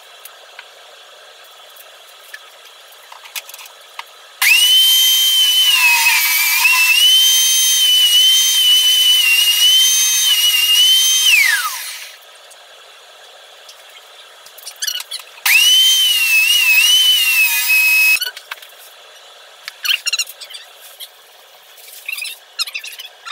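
Electric tile cutter's motor running with a high whine for about seven seconds, its pitch dipping and wavering under load, then winding down. A second, shorter run follows a few seconds later and cuts off suddenly. The cutter is not cutting the tile properly, and the user says it needs a new blade.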